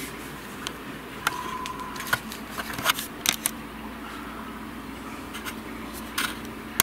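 Sharp clicks and scrapes of a Goffin's cockatoo's claws and beak on the window frame and glass as it climbs, a quick run of them in the first half and two more near the end, over a steady indoor hum.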